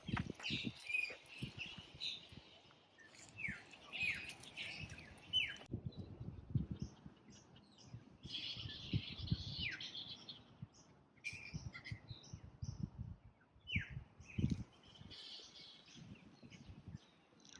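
Birds chirping in repeated short calls, several sliding down in pitch, over irregular low thuds and rumble.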